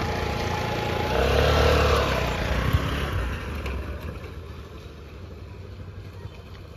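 TVS Scooty Pep scooter's small petrol engine revving up as the scooter pulls away, then fading steadily as it rides off.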